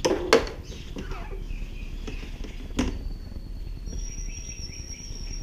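Plastic hatch lid of a Jackson Kayak Cuda 14 being handled: two sharp clicks about two and a half seconds apart, over a low steady hum. A faint, thin, high whistle sounds through the last second and a half.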